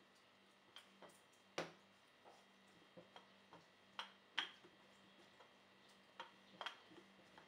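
Wooden rolling pin clicking and knocking as it rolls out and is lifted off a disc of bun dough on a silicone mat: a few sharp clicks, mostly in pairs, the loudest about one and a half seconds in and just after four seconds.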